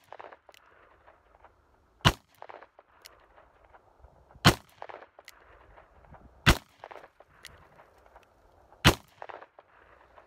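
Taurus Tracker .44 Magnum revolver firing four single shots, roughly two seconds apart, each followed by a short echo.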